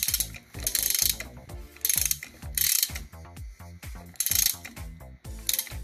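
Ratchet wrench on the flywheel rotor nut of a Kawasaki Fury engine, clicking in several short bursts as the crank is turned over by hand. The engine is being rotated slowly to check that the valves clear the piston after roller rocker arms and a new cam were fitted, and nothing is heard to hit.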